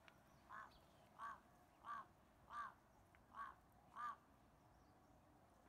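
A bird calling six times in an even series, one call about every two-thirds of a second.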